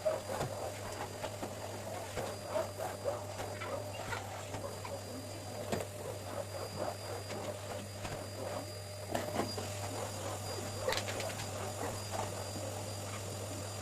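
Light, irregular clicks and rustles of objects being handled during household cleaning, over a steady low electrical hum.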